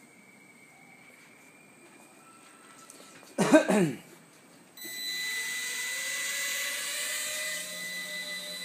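A single short, loud cough about three and a half seconds in. About a second later the Walkera Ladybird V2 micro quadcopter's small electric motors spin up into a steady high-pitched whine.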